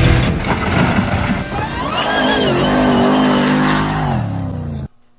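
An off-road vehicle's engine revving, climbing and then falling in pitch, over loud music. The sound cuts off suddenly near the end.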